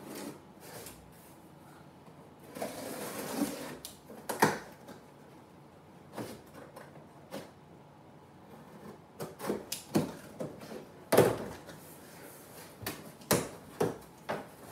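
A small cardboard box being opened and its contents handled by hand: about a second of tearing near three seconds in, then scattered knocks and clicks of cardboard and parts, coming thick and fast in the last few seconds.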